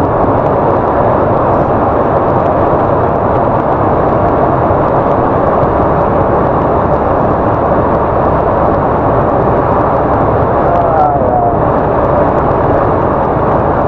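Steady wind and road noise with a low diesel engine hum, heard inside the cab of a Volkswagen 8-150 Delivery truck cruising on the highway.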